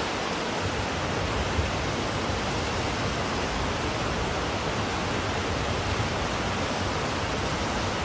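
Waterfall spilling down rock ledges into a pool, with the shallow stream below it, making a steady, even rush of falling and running water.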